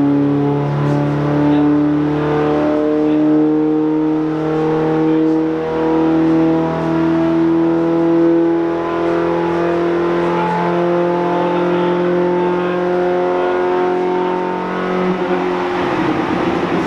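Classic Mini Cooper's four-cylinder engine held at full throttle on a chassis dynamometer. Its pitch climbs slowly through one long pull, then falls away near the end as the run finishes. The pull makes only about 30 wheel horsepower.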